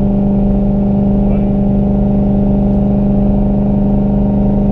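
Single-turbo Ford Mustang's Coyote V8 heard from inside the cabin, droning at a steady cruise with an even, unchanging pitch: held at part throttle, not yet accelerating.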